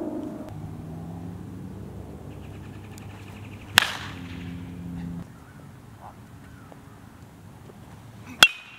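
Baseball bat striking a pitched ball twice, about four and a half seconds apart: each a single sharp crack. A low steady hum runs under the first half.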